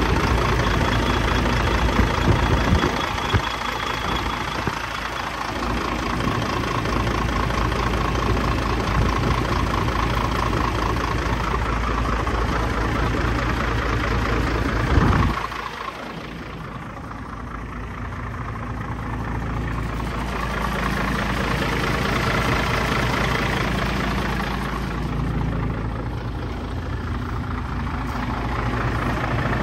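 1998 Ford LT9513 dump truck's 10.5-litre inline-six diesel idling steadily, its level dipping for a few seconds about halfway through.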